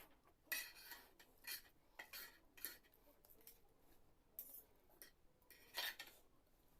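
Eating utensils clinking against a dish, about six short, sharp clatters spread out with quiet between them.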